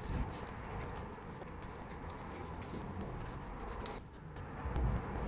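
Plastic scraper rubbing and scratching old sealant off the rear mating surface of a BMW N62 V8 engine block in short, quick strokes, with a dull bump near the end.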